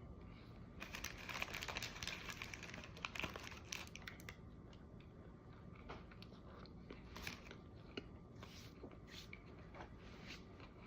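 Paper sandwich wrapper crinkling for about three seconds, then quieter chewing with scattered small clicks.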